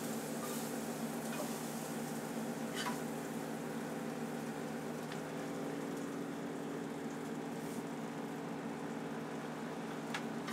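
Steady food-truck kitchen background: a constant hum of kitchen equipment under a soft hiss of food sizzling on the flat-top grill, with a few faint light clicks as toppings are handled.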